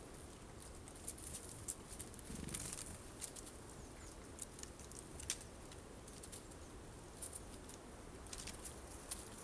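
Tits feeding at a seed feeder: faint, scattered light pecking taps and rustles, with a slightly louder soft flutter about two and a half seconds in.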